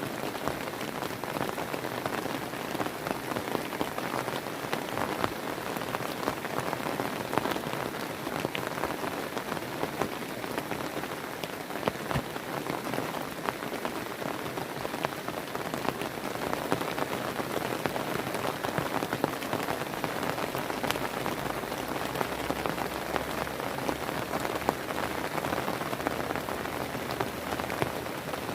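Heavy rain falling steadily, a dense hiss dotted with many sharp ticks of drops striking a surface.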